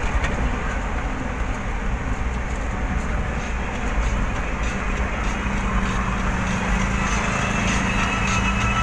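Engine and road noise inside a moving vehicle's cab: a steady low rumble with tyre and wind hiss. A steadier, higher hum joins about five seconds in and grows a little louder.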